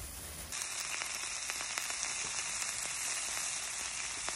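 Pork belly slices sizzling on a round griddle pan: a steady frying hiss dotted with fine crackles, cutting in suddenly about half a second in.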